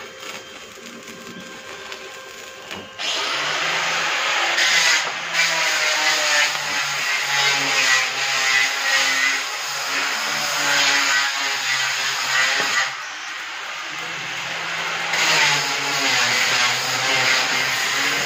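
Stick (arc) welding on a steel grill frame: the electrode arc crackling and sizzling over the hum of the welding machine, louder from about three seconds in and dipping briefly past the middle.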